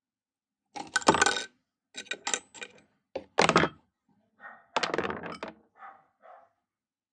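Small metal parts clinking and rattling as they are handled during the teardown of a vintage PFAFF industrial sewing machine, in four short clattering bouts.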